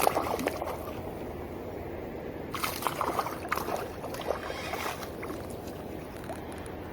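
Water sloshing and trickling, with a burst of splashing from about two and a half to five seconds in.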